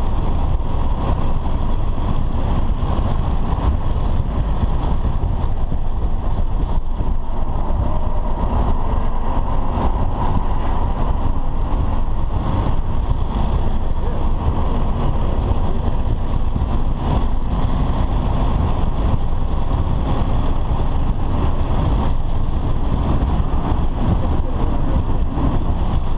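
Cabin sound of a BMW F10 sedan driven hard on a race track: the engine running under load, with a steady rumble of road and wind noise.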